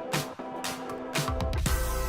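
Electronic background music with a steady beat of about two beats a second; a deep bass comes in just past halfway.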